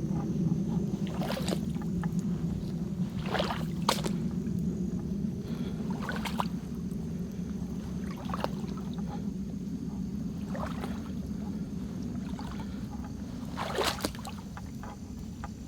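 Slow, careful footsteps crunching through brush and dry leaves on a trail, one crunch every second or two, over a steady low rumble.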